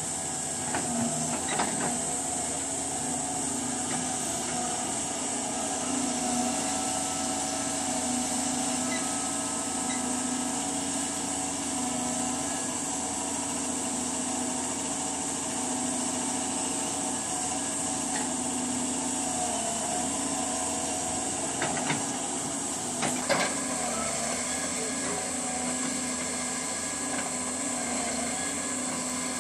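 Doosan DX210W wheeled excavator's diesel engine running steadily under hydraulic load while its rotating stone grab works boulders, with a steady whine and hiss. A few sharp knocks of rock striking rock, near the start and again a little past two-thirds through.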